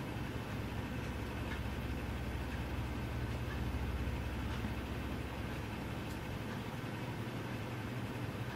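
Steady low mechanical hum, like a running appliance or motor, with a few faint light ticks over it.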